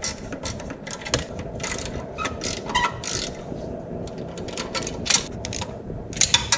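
Ratchet wrench clicking in short irregular runs, a few clicks a second, as exhaust header flange nuts are snugged up a little at a time to seat the pipes into their copper gaskets.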